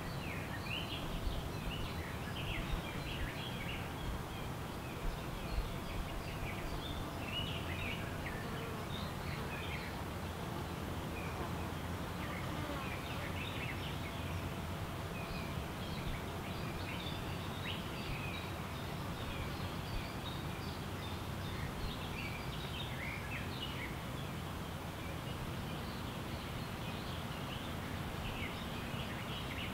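Forest birdsong: several small birds chirping and calling in quick, scattered short notes throughout, over a steady low background rumble.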